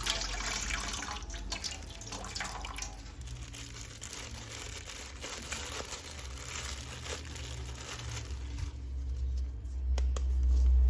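Running tap water splashing, with light crinkling and clicks from handling, fading after the first few seconds.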